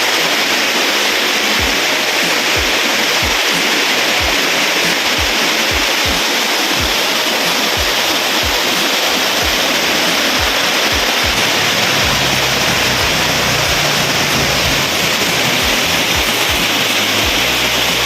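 Diguisit Falls' waterfall: a steady, loud rush of water pouring over and onto rocks.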